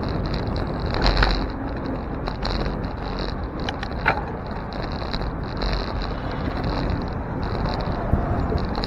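Street traffic heard from a moving bicycle: a steady rumble of road and vehicle noise, with two short sharp clicks, about one second and about four seconds in.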